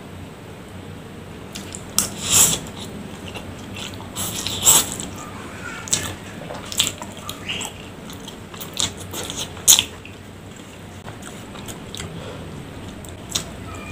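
Close-miked mukbang eating sounds: a man slurping and chewing forkfuls of Indomie goreng fried instant noodles with cilor. Irregular wet smacks and slurps come every second or so.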